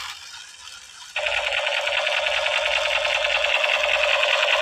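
Battery-powered black toy rifle firing its electronic rapid-fire effect: a rapid buzzing rattle that starts suddenly about a second in and keeps going.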